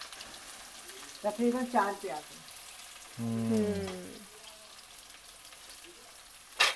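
Sliced onions sizzling in hot oil and ghee in a karahi as they are tipped in to brown, a steady frying hiss. A sharp knock comes near the end.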